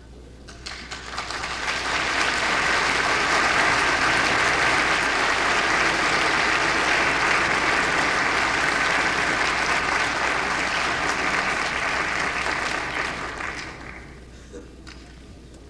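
A hall full of delegates applauding: the clapping swells over the first two seconds, holds steady, then dies away about fourteen seconds in.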